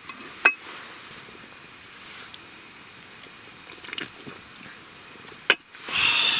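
Chewing a mouthful of fried oyster with a crisp crust, over a steady low hiss, with a sharp click about half a second in and a louder rasping crunch near the end.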